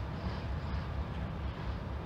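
Approaching CSX diesel freight locomotives heard from a distance as a steady low rumble.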